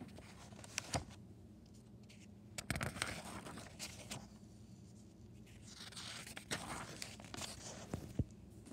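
Pages of a softcover picture book being turned by hand: paper rustling and swishing twice, about three seconds in and again around six to seven seconds, with a couple of light taps near the start.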